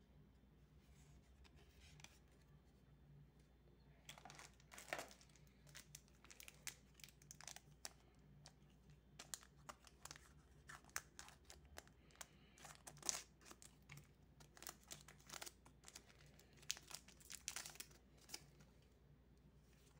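Foil wrapper of a Magic: The Gathering set booster pack crinkling and tearing as it is handled and opened: irregular crackles starting about four seconds in and stopping shortly before the end.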